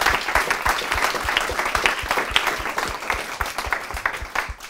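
Applause from a small audience, many hands clapping, tapering off near the end.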